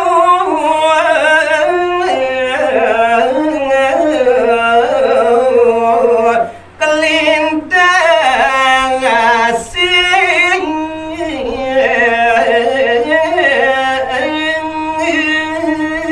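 A man sings a line of Balinese pupuh Sinom geguritan verse solo into a microphone. His voice slides through long, ornamented held notes, with short breath breaks about six and a half and nearly ten seconds in.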